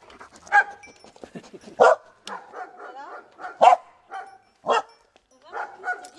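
A dog barking excitedly: four loud, short barks at uneven intervals, with quieter yelps in between.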